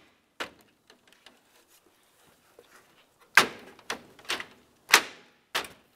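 Plastic front grille assembly being pressed onto a Ford Flex: a faint click under a second in, then about five sharp plastic snaps and knocks in the second half as its push clips seat.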